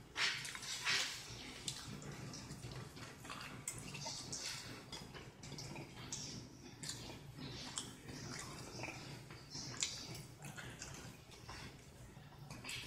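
Close-up chewing and wet lip-smacking while eating pork chop and mashed potatoes: irregular short mouth clicks and smacks over a faint steady low hum.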